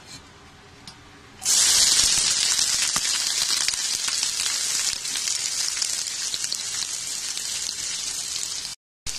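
Sliced onions and cashews hit hot oil in a frying pan and start sizzling suddenly about a second and a half in, a loud, steady sizzle that eases slightly and breaks off for a moment near the end.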